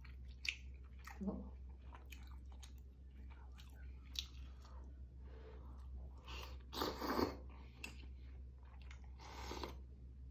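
A man eating seaweed soup: soft chewing with scattered small clicks, and louder slurps of seaweed and hot broth about seven seconds in and again near the end.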